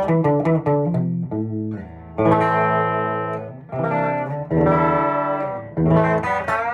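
Ibanez Artcore AG75 hollow-body electric guitar being played: a run of quick single picked notes, then three ringing chords, about two seconds in, midway and near the end, with single notes picking up again right at the end.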